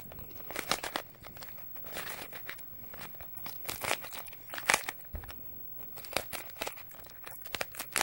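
A plastic Rubik's cube being turned by hand, its layers clicking and scraping in short, irregular bursts of a few turns, about one burst a second.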